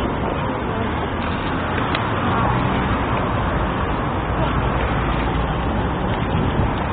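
Steady din of city road traffic.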